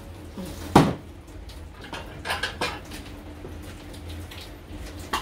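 Dishes and cutlery clinking: one sharp clink about a second in, then a few lighter taps.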